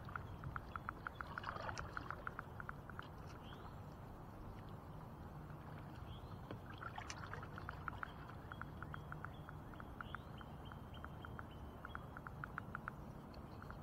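Fishing reel clicking in quick, even runs, several ticks a second, with a faint steady whine in the second half, as the reel works under the load of a large flathead catfish on a hard-bent rod.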